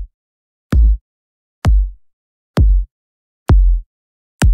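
Electronic house kick drum sample played alone as single hits, about one a second: four hits and a fifth starting at the very end. Each hit is a sharp click falling into a short, low, quickly decaying boom, with silence between the hits.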